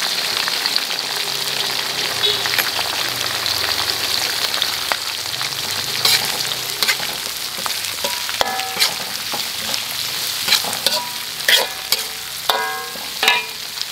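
Spring onions and herbs sizzling in oil in an aluminium wok, stirred with a metal spatula. The spatula scrapes and clicks against the pan, more often from about halfway through.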